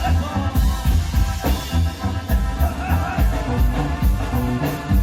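Instrumental passage of Mexican regional dance music: a bouncing tuba-style bass line under sustained melody instruments, with drums and a cymbal ticking about three times a second on a steady dance beat.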